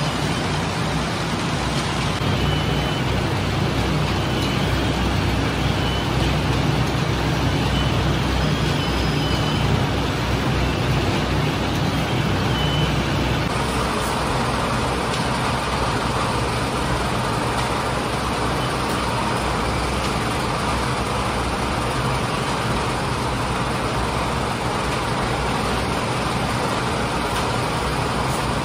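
Steady mechanical hum and whir of bakery machinery, a dough sheeter's rollers and conveyor belt running. About halfway through, the low hum drops away, leaving an even rushing noise.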